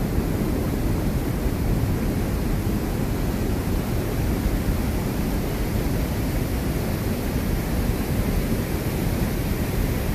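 A forest stream rushing, a steady low, even rush of water that does not change.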